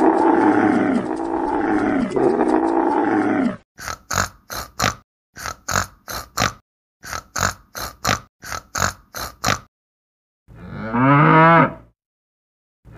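A camel's long, rough groaning call, then a wild boar giving about a dozen short grunts in quick runs, then a cow mooing once with a falling pitch and starting a second moo at the very end.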